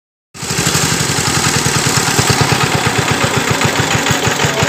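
An engine running steadily with an even low beat of about seven pulses a second, starting abruptly about a third of a second in.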